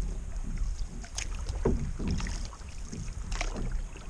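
A canoe being paddled on choppy water: the paddle dipping and pulling through the water with splashes and drips, over a steady low rumble.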